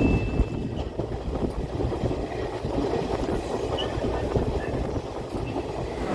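Passenger train coach rolling along the track, heard from inside by an open window: a steady rumble of wheels and carriage, with faint knocks. A thin high tone sounds for about the first second.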